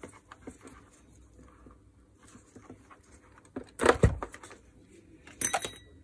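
Small clicks and rustling as wires and spade connectors are handled inside a vacuum cleaner's plastic motor housing. Two louder clattering knocks come about four seconds in and again about a second and a half later.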